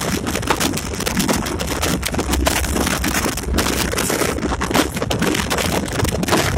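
Inside the cab of a moving EMD SD24 diesel locomotive: a steady low rumble from the engine and the rails, with constant rattling and clatter from the rough track, and wind buffeting the microphone.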